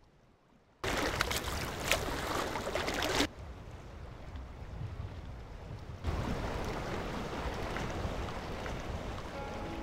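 Wind buffeting the microphone, cutting in suddenly about a second in and changing level abruptly near three and six seconds. From about six seconds on, a steady rush of wind with waves on open water.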